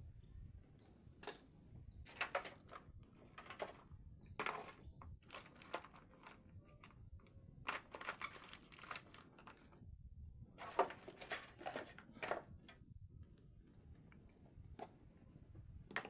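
Irregular bursts of crinkling and tearing, coming in several short clusters with pauses between them.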